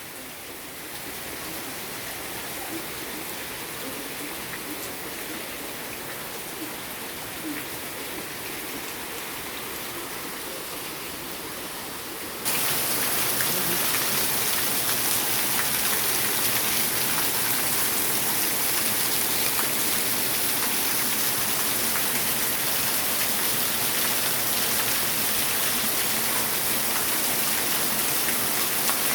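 Heavy rain pouring down steadily. About twelve seconds in it abruptly becomes louder and hissier.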